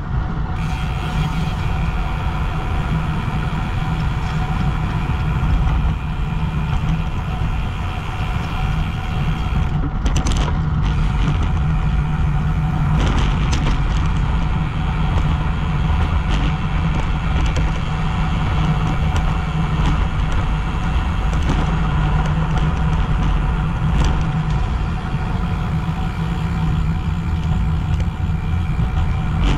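Wind buffeting the microphone of a GoPro on a moving bicycle: a steady low rumble, with a fainter steady hum of several pitches above it.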